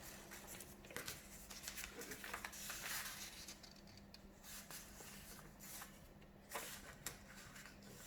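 A sheet of paper rustling and crinkling as it is handled and folded into a crease, in irregular soft crackles with a denser rustle about three seconds in.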